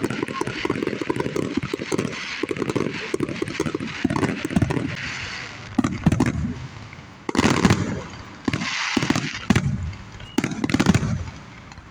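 Aerial fireworks going off: a dense run of pops and crackles, then several separate loud booms in the second half.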